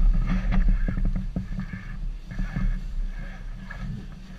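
Camera handling noise: a low rumble with irregular rustling and light knocks as a GoPro on a handheld pole is moved about, loudest in the first second or so and easing off after.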